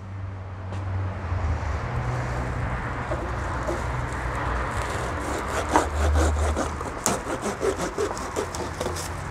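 Small pruning saw rasping through a live bonsai branch just below an air layer, then a run of sharp cracks as the branch is worked and snapped free.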